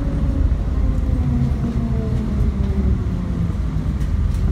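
Steady low rumble of a moving vehicle heard from inside, with faint tones that slide slowly lower.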